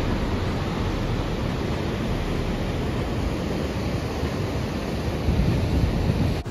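Water rushing steadily over the stepped weir on the River Avon, an even wash of white water, with wind rumbling on the microphone.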